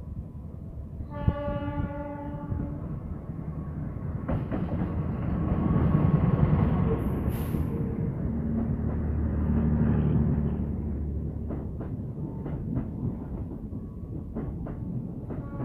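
Passenger train sounding one short horn blast as it approaches, then running close past a station platform: a rumble that swells to its loudest about halfway, with a brief hiss, followed by a run of wheel clicks over rail joints.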